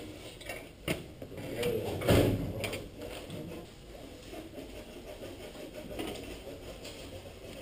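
Aluminium sheet-metal parts handled on a workbench: a few knocks and clicks as a clecoed frame is moved and a thin drilled skin panel is laid onto it, the loudest about two seconds in.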